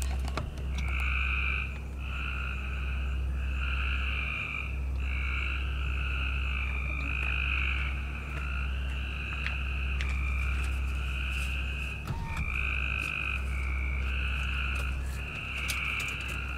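A chorus of frogs calling at night, with short trilled calls overlapping one after another without a break. A steady low rumble runs underneath.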